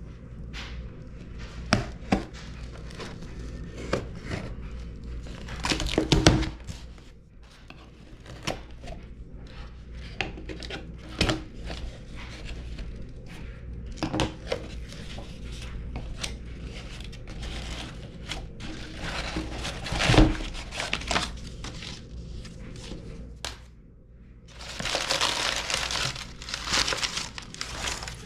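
Packaging of a new iPhone being handled in an unboxing: scattered clicks and knocks of the box with plastic crinkling, and a longer stretch of crinkling noise near the end.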